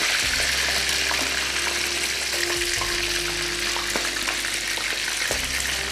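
Whole fish shallow-frying in hot oil in a frying pan, a steady sizzling hiss. The fish is still giving off water from being kept on ice, so the oil sizzles hard.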